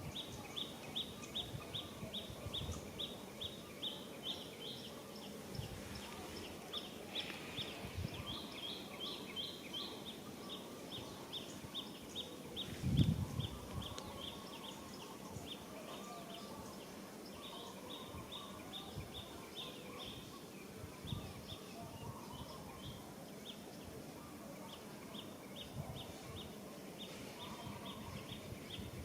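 Rapid trains of short, high chirps, about four or five a second, over outdoor background noise, with scattered soft low thumps and one louder thump about 13 seconds in.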